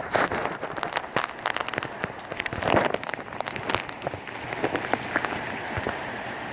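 Heavy thunderstorm rain: a steady hiss of rain with many sharp, irregular drop impacts on a nearby hard surface, thickest in the first few seconds and easing off near the end.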